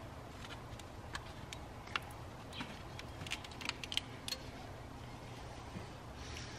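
Faint scattered clicks and light taps from a plastic motor oil bottle being handled and turned over in the hands, most of them in the first four and a half seconds, over a low steady background hum.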